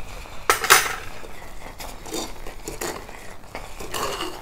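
A stainless-steel ladle knocks and scrapes against a clay pot while stirring thick, cooking pearl millet. The clinks and scrapes come irregularly, and the loudest clatter is about half a second in.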